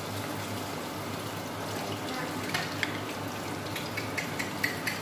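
Chicken and vegetables sizzling in a wok, with a spatula clicking and scraping against the pan from about halfway through as the stir-fry is mixed.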